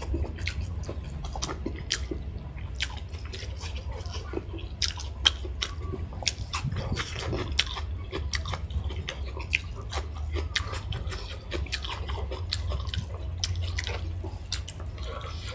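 Close-miked chewing and wet mouth smacks of someone eating a homemade chicken leg with rice and dal: many short, sharp clicks scattered throughout, over a steady low hum.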